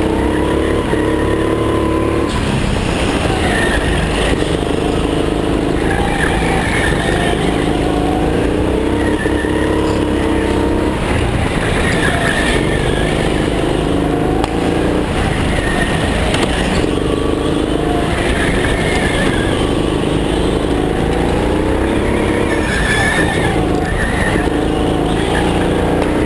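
Go-kart engine heard from on board under racing load, its pitch climbing on the straights and falling back into each corner, over and over every few seconds.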